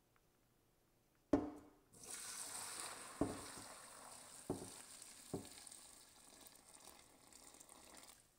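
A knock, then chicken stock poured from a stock pot through a strainer into a bowl: a steady splashing hiss for about six seconds with three more knocks along the way, stopping just before the end.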